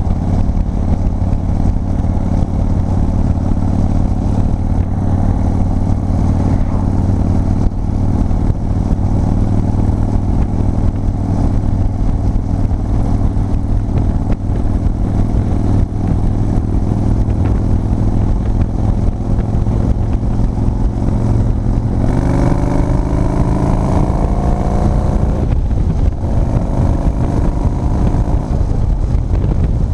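Big Dog K9 chopper's V-twin engine heard from the saddle, running steadily at cruising speed. About two-thirds of the way in the revs climb hard, break briefly for a gear change, then climb again as the bike accelerates past the car ahead.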